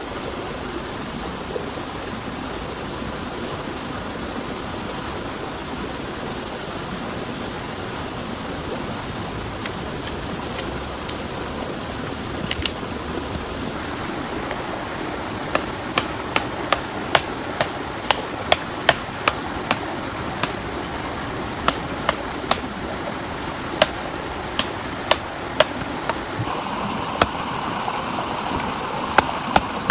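Heavy rain falling steadily in a constant hiss. From about halfway, sharp irregular taps, roughly one or two a second, sound above the rain.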